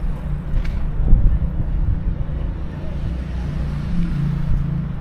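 Steady low drone of a motor vehicle engine amid city street noise, its pitch dropping slightly about four seconds in.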